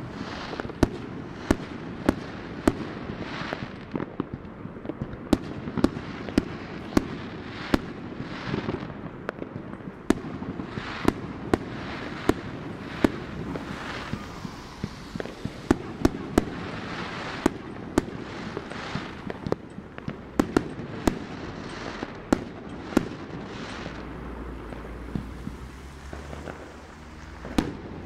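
Fireworks going off all around: sharp bangs and pops every second or so, mixed with bursts of crackle that die away within about half a second. A low rumble comes in near the end.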